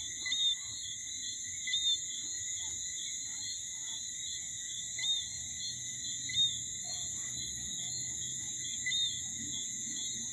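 Night-time insect chorus: crickets trilling steadily at several high pitches, with a short, louder chirp repeating every one to a few seconds.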